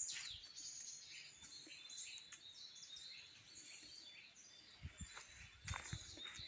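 Faint birdsong: small birds chirping and singing in repeated short high phrases, with a few soft thuds about five seconds in.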